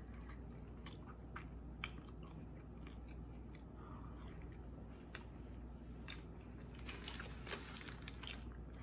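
A person chewing tater tots close to the microphone: faint, scattered crunchy clicks, with a denser run of louder clicks a little before the end.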